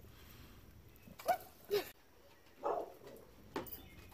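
Small dog whimpering and yelping in a few short, separate cries, two pitched whines close together about a second in and a rougher yelp a little later.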